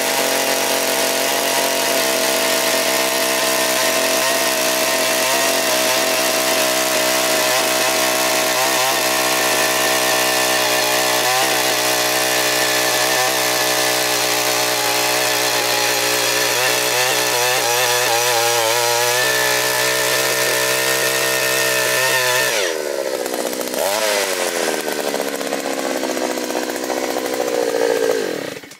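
Petrol engine of a push-wheeled earth auger running at steady high speed while drilling into hard soil. About 22 seconds in, the engine note drops and wavers up and down, then the sound cuts off suddenly near the end.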